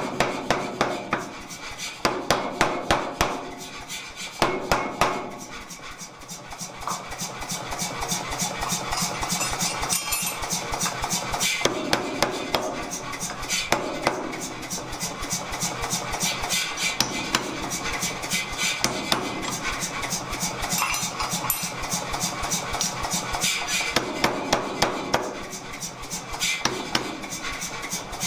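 An 88 lb Anyang power hammer striking a red-hot steel swage block in rapid, rhythmic blows, with runs of harder strikes among lighter ones. The hammer's motor runs underneath.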